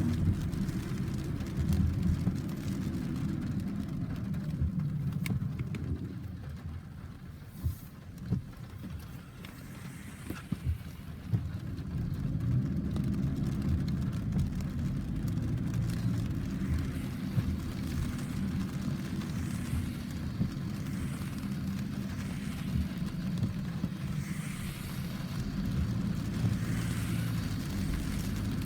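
Low rolling rumble of thunder in a thunderstorm. It eases off about six seconds in and builds again a few seconds later, with scattered sharp clicks over it.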